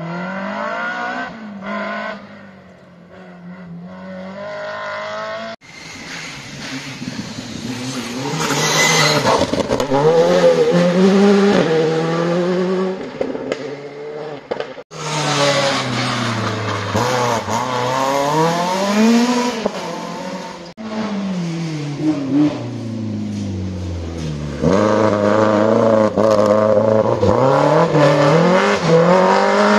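Rally cars on a special stage, engines revving hard, the pitch climbing and dropping again and again through gear changes as each car approaches and passes. Several separate passes are cut together, with sudden breaks about six, fifteen and twenty-one seconds in.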